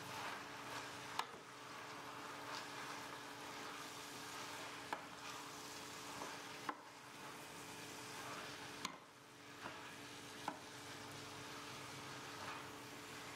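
Wooden spoon stirring a vegetable mixture in a stainless steel sauté pan over a faint, soft sizzle, with a few sharp clicks of the spoon against the pan. A faint steady hum sits underneath.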